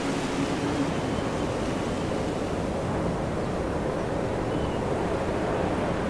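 Mountain wind blowing steadily, an even rushing noise, with a faint short high note about four and a half seconds in.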